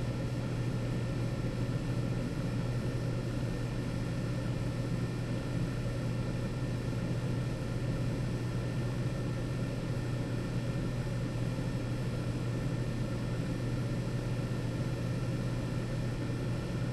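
EZ Air Select HEPA air cleaner's blower running steadily: a constant rush of air with a strong low hum.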